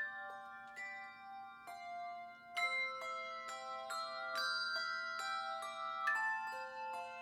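Instrumental music: a gentle melody of struck, bell-like notes that ring on and overlap, several pitches sounding together, with a new note struck every half second or so.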